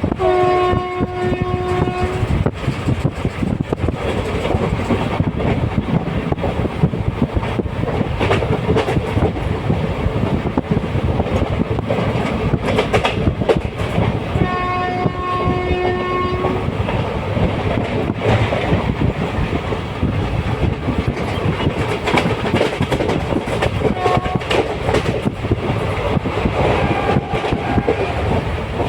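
Train running at speed, wheels clattering steadily over the rails, with the horn sounding twice, each blast about two seconds long, and a brief toot later.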